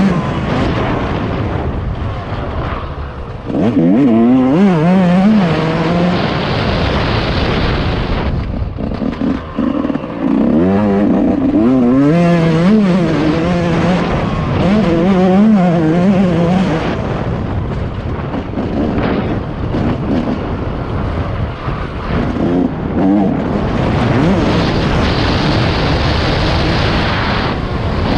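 Two-stroke engine of a Yamaha YZ 144, a YZ125 with a big-bore kit, heard from on the bike while riding a motocross track. The revs rise and fall over and over as the rider works the throttle through the turns, with the throttle briefly shut a couple of times.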